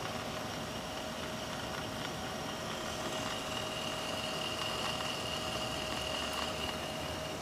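Steady running noise inside a streetcar cabin, with a steady whine of two high tones over it. The higher one comes in a couple of seconds in and stops near the end.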